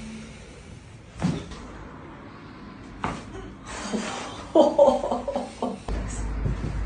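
Spinal joints cracking during a chiropractic back adjustment: two sharp pops about two seconds apart, then a louder cluster of cracks with a short vocal sound from the patient.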